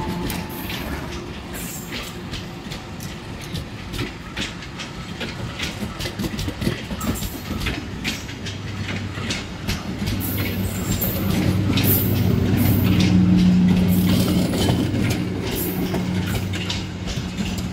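Passenger train coaches rolling past, their wheels clicking over the rail joints in a quick irregular rhythm. A steady low hum grows louder in the second half and then eases.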